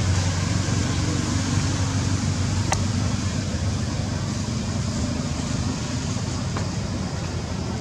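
Steady low outdoor rumble of background noise, with two faint clicks, about three seconds in and near the end.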